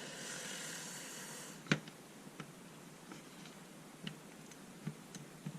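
Soft scraping hiss for about a second and a half, then one sharp click and a few faint ticks: hand-prying on the plastic parts of a small cordless screwdriver held in by glue.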